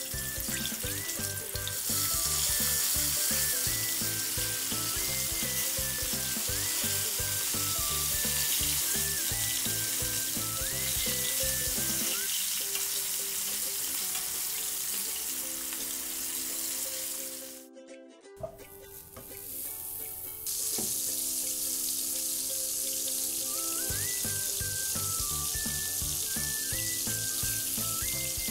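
Chicken wings deep-frying in very hot oil in a wok: a loud, steady sizzle, with background music playing over it. About two-thirds of the way through the sizzle breaks off briefly. It then comes back as butter and finely chopped garlic sizzling in a frying pan.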